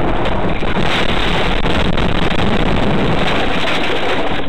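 Loud, steady rumbling road and tyre noise through a dashcam's microphone as the car runs off the road into roadside bushes.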